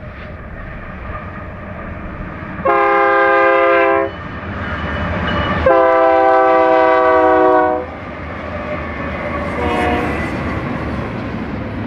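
BNSF freight train passing with its diesel locomotives' horn sounding twice: a blast of just over a second, then a longer one of about two seconds, both a chord of several tones. Between and after the blasts come the rumble and clatter of double-stack intermodal cars rolling by on the rails.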